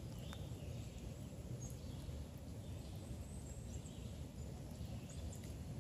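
Woodland ambience: a steady low rumble with a few faint, short bird chirps scattered through.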